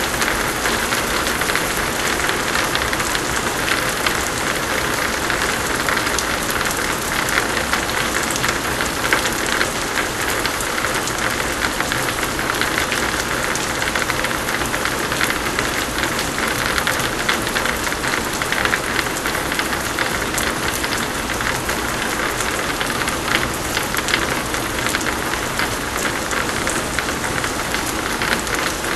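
Heavy rain pouring steadily, a dense, even patter of drops.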